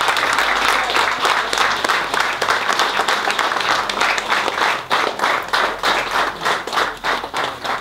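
Crowd applauding. The dense clapping thins out in the second half into scattered, separate claps.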